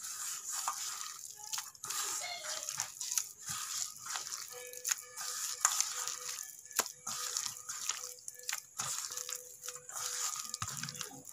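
A bare hand squishing and kneading sticky mashed-banana dough against a stainless steel bowl: irregular wet squelches and small smacks. A faint steady hum comes in about four seconds in.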